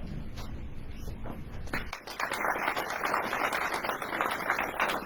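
Audience applause starts about two seconds in: dense clapping from many hands that carries on. Before it there is a low room rumble.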